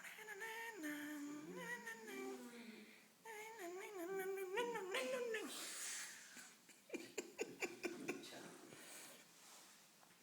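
A pet animal, reluctant at its bath, gives two long cries whose pitch wavers and slides. About seven seconds in come several sharp clicks.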